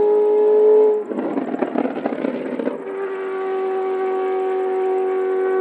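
Formula Renault 3.5 single-seater's Zytek V8 held at high revs in a steady howl. About a second in, the note breaks into a rough, crackling stretch of about two seconds, then the steady note returns a little lower in pitch and grows louder as the car approaches.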